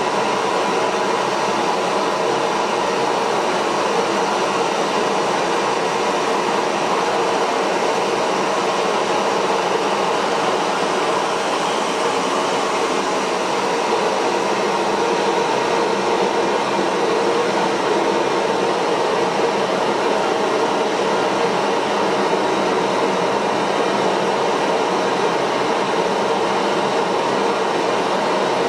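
Small workbench jet engine running at a steady speed: a loud, even rush of air with a steady tone underneath.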